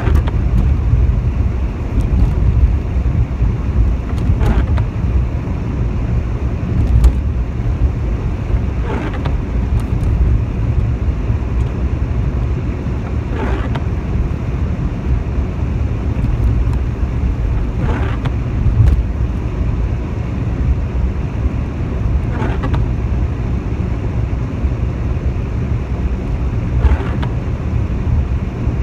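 Steady low rumble of a car driving on a wet road, heard from inside the cabin, with the windscreen wipers sweeping across the glass about every four and a half seconds.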